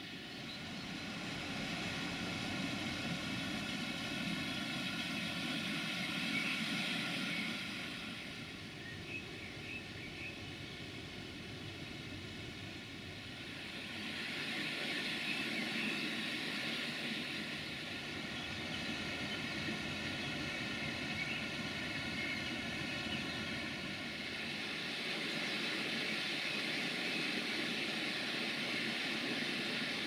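Distant diesel railcar engine droning, swelling and fading in waves as the train approaches.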